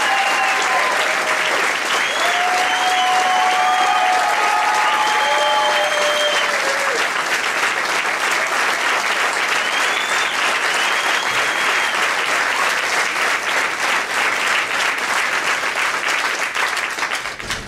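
Rally crowd applauding and cheering, dense clapping with voice-like cheers rising above it in the first several seconds and again around ten seconds in; the applause dies away at the very end.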